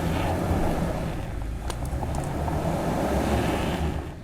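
Toyota Tacoma straining on crawl control at a rock ledge: engine running under load with a steady low drone while the wheels lose traction and the truck does not move. It cuts off abruptly near the end.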